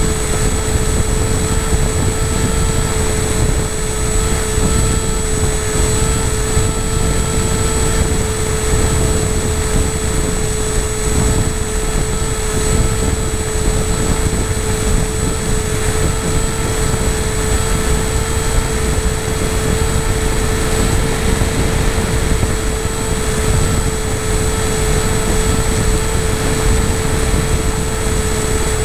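A radio-controlled FPV model aircraft's motor and propeller running at a steady speed in flight, heard from the onboard camera, with a constant whine and heavy wind rumble on the microphone.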